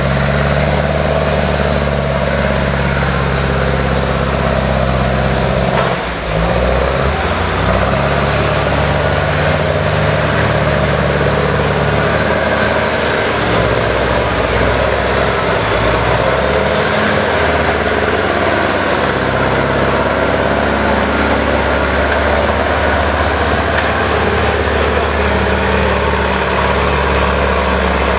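Diesel engine of a wheeled forestry skidder running under load as it drives through deep mud, its engine note shifting up and down several times, with a brief break about six seconds in.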